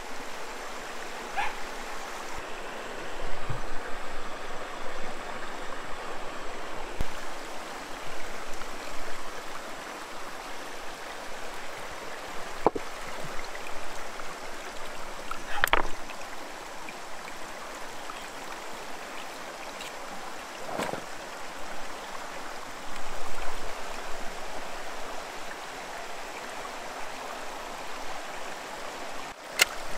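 Shallow rocky stream running steadily over river stones, with a few sharp knocks scattered through.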